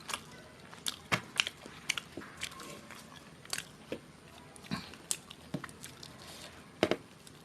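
Close-miked eating sounds: someone biting and chewing a meal of chhole bhature, with irregular wet clicks and smacks of the mouth.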